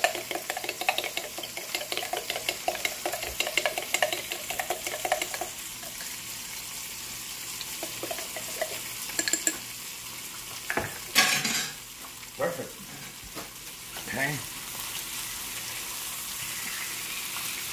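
Metal spoon stirring a sauce in a glass jar, a quick run of clinks against the glass for the first five seconds or so, over the steady sizzle of chicken frying in a pan. A single louder clatter about 11 seconds in.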